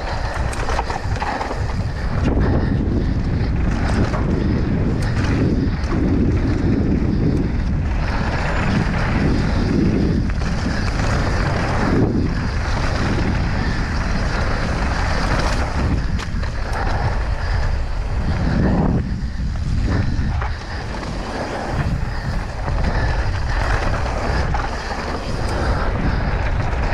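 Mountain bike running fast down a dirt trail: steady wind rush over the mounted camera's microphone mixed with tyre noise on the dirt, and frequent rattles and knocks from the bike over bumps.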